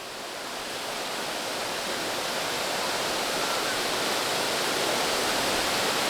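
Waterfall pouring into a creek pool, a steady even rush of falling water that grows gradually louder over the first few seconds and then holds.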